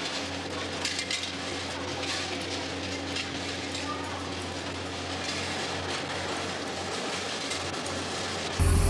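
Fish-processing line running: a steady machine hum with scattered light clinks and rattles of fish and metal trays being handled. Near the end it cuts abruptly to a louder, low engine sound.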